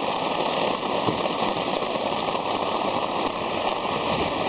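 Heavy rain falling on the lake and the canoe: a steady, dense hiss with a crackly grain.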